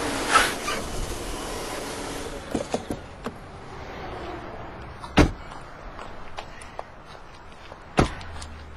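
A hiss for about two seconds, then scattered light clicks and two sharp knocks about three seconds apart.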